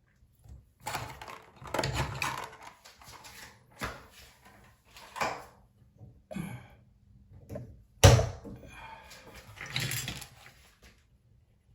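Irregular clunks, knocks and rattles of hands working at a bathroom faucet and the cabinet around it, with one sharp knock about eight seconds in.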